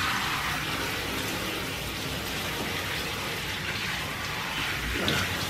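Handheld shower head spraying water onto a wet dog's coat in a bathtub: a steady hiss of running water as the dog is rinsed.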